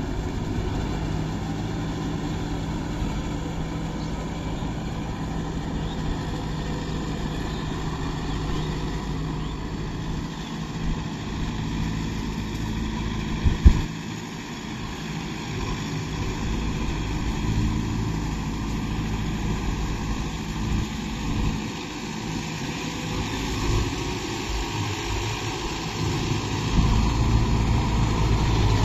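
Kubota tractor's diesel engine running steadily as it pulls a rotavator through wet mud, growing louder near the end as the tractor comes closer. A single sharp click about halfway through.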